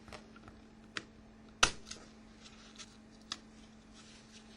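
Sharp plastic clicks and snaps as the front (A) cover of a Nokia 6100 mobile phone is unclipped and handled: a handful of separate clicks, the loudest about one and a half seconds in, over a faint steady hum.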